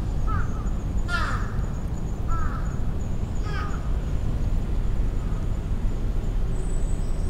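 A crow cawing four times, short harsh calls about a second apart, over a steady low rumble.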